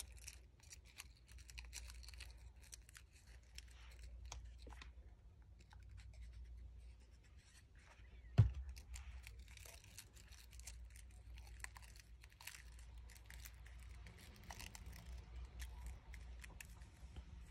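Faint rustling and crinkling of a fringed paper strip being rolled tightly by hand into a coil, with many small scratchy ticks over a low steady hum. A single sharp knock about eight seconds in is the loudest sound.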